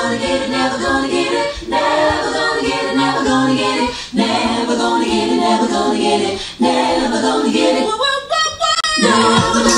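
Singing voice, mostly unaccompanied, in phrases of long held notes broken by short pauses. Near the end there is a brief patch of clicking.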